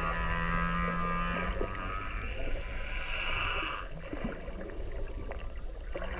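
Whale calls recorded underwater: long, drawn-out tonal moans with overtones that fade out about four seconds in, over a steady low underwater rumble with a few faint clicks.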